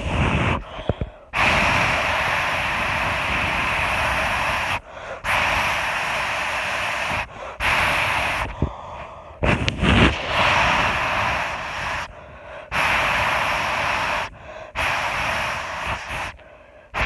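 Loud breathy hissing close to the microphone, in about six long stretches of two to three seconds each, broken by short pauses, made to keep the sounds of using the toilet from being heard.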